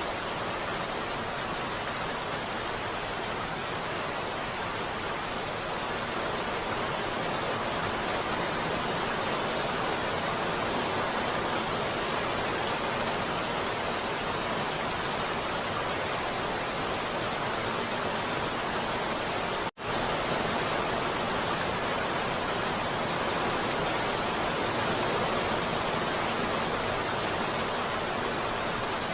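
Heavy rain falling as a steady, even hiss. About two-thirds of the way through it cuts out for a split second and comes straight back, like an edit splice.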